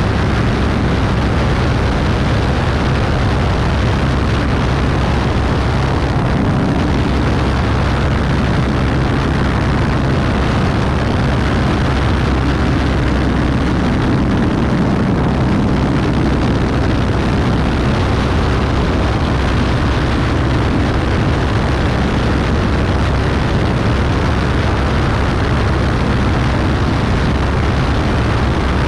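Beechcraft Bonanza B35's flat-six piston engine and propeller running steadily in cruise flight, heard from a camera mounted outside the airframe. The engine drone is mixed with a heavy rush of wind over the microphone.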